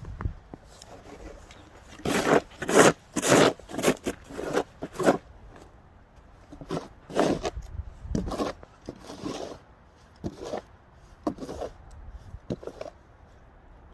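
Snow shovel scraping and pushing snow on a sidewalk in short strokes: two runs of quick strokes, then a few single ones near the end.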